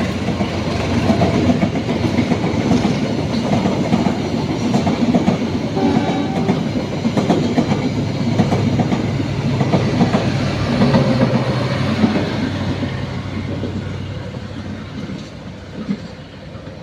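Passing train, its wheels clattering over the rail joints above a steady low engine drone, fading away over the last few seconds.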